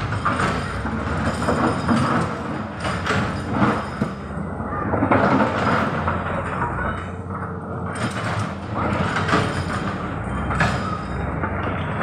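Tracked hydraulic excavator working, its diesel engine running with a steady low hum while it digs and loads rock into a dump truck. Uneven rattling and several sudden clatters of stone and steel.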